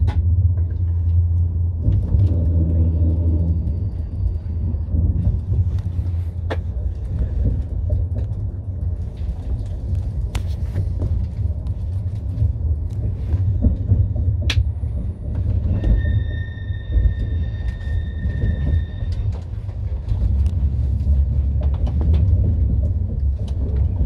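ICE train rolling through the track field, heard from inside a passenger compartment: a steady low rumble with scattered sharp clicks from the wheels on the track. About two-thirds of the way through, a steady high two-note tone lasts about three seconds.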